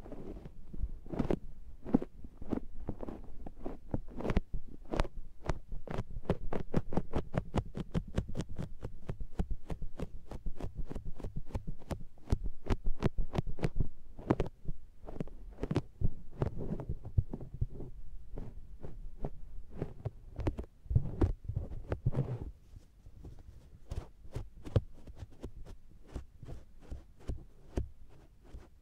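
Makeup sponges pressed and rubbed against a binaural microphone's silicone ear, giving rapid soft sticky patting and clicking over muffled low thumps. It grows quieter in the last few seconds.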